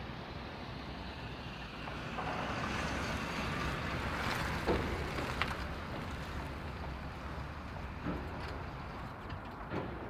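A Chevrolet minivan drives past and away, its engine and tyre noise swelling from about two seconds in, loudest around the middle, then fading as it goes, over a steady low rumble.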